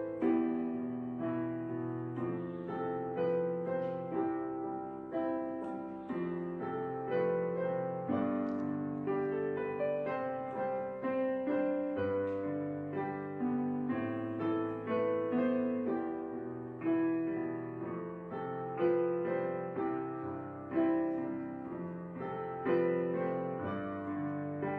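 Solo piano music as background, notes struck and left to ring and fade.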